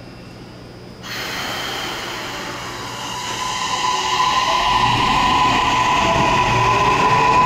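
Toei 6500 series subway train's Mitsubishi hybrid-SiC IGBT-VVVF inverter and traction motors pulling away from a standstill. The sound comes in suddenly about a second in, then a steady inverter tone is joined by whines that climb in pitch and grow louder as the train gains speed.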